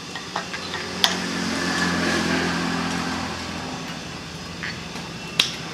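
An engine hums in the background, growing louder and then fading over about three seconds as it passes. Sharp clinks of spoons and chopsticks on bowls come about a second in and near the end.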